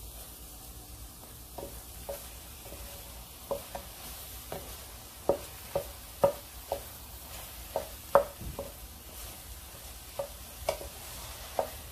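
Scrambled eggs being stirred in an electric skillet: irregular light knocks and scrapes of a spatula against the pan over a faint steady sizzle.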